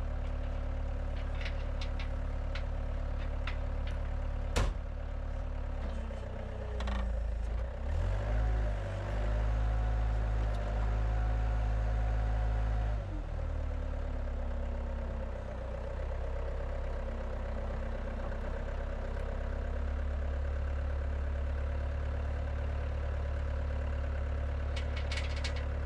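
Skid steer engine running steadily, with a single sharp knock a few seconds in. About a third of the way through it revs up and holds at higher speed for several seconds, then drops back to idle.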